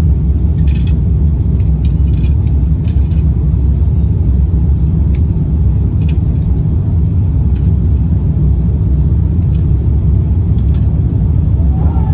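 Steady low rumble of an Airbus A350-900 cabin in climb, the Rolls-Royce Trent XWB engines and airflow heard from a window seat over the wing, with a few faint light clicks in the first few seconds.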